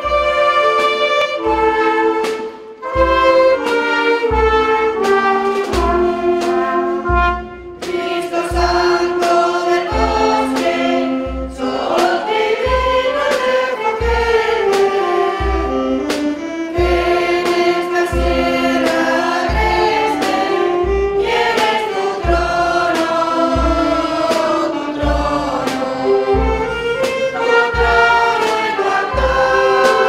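Women's choir singing a hymn with a small wind band of clarinets and flutes, over a steady drum beat about once a second.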